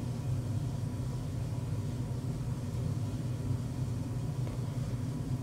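Steady low hum of room background noise, with no distinct events.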